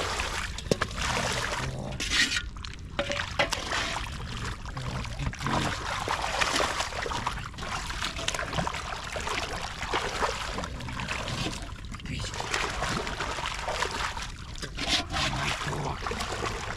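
Shallow pond water splashing and sloshing as someone wades and gropes for fish by hand, with irregular splashes and drips throughout.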